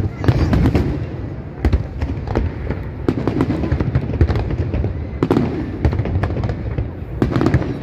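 Aerial fireworks shells bursting, an irregular string of sharp bangs, several a second at times, over a constant low rumble.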